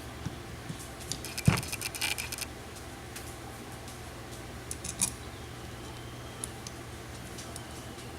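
Small steel tool parts clinking and knocking together as they are handled: a cluster of clinks with one louder knock about a second and a half in, and another short clink around five seconds, over a steady low hum.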